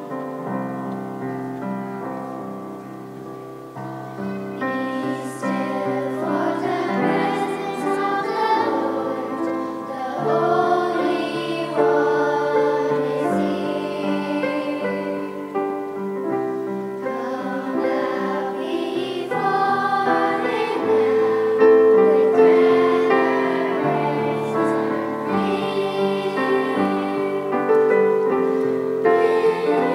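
Church choir singing a hymn with keyboard accompaniment. The keyboard plays alone for the first few seconds before the voices come in.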